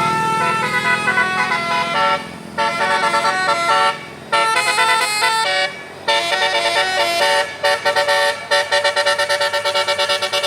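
Telolet multi-tone bus air horn playing a quick melody of stepped notes, with short breaks about two, four and six seconds in, then a rapid string of short toots near the end.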